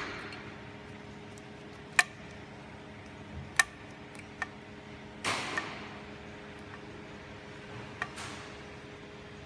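A few separate sharp metallic clicks and knocks, with a short clatter about halfway through, as tools or metal parts are handled, over a steady low hum.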